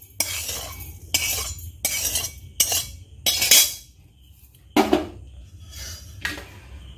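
Metal spatula scraping dry-roasted whole spices (coriander and cumin seeds with a few cloves and cardamom) out of an empty karahi into a stainless steel grinder jar: about five short scrapes and clinks, the loudest about three and a half seconds in. Then a couple of lighter knocks as the steel jar is set on the steel stovetop.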